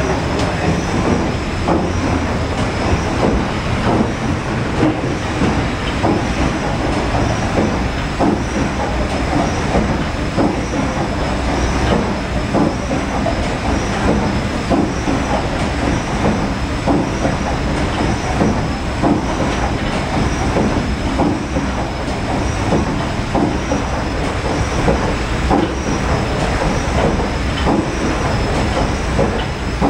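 Paddle Steamer Waverley's 1946 Rankin & Blackmore triple-expansion steam engine running under way, its cranks and connecting rods turning with a loud, steady mechanical clatter and a regular beat.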